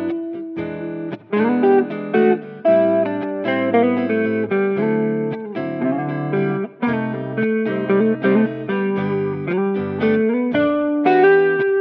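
Background music led by a plucked guitar, a run of picked notes and chords.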